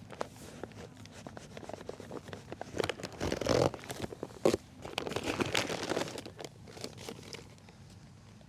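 Dry granulated sugar poured onto newspaper over a beehive's frames: a crinkling, rustling hiss of paper and sugar, with two louder stretches about three and five seconds in.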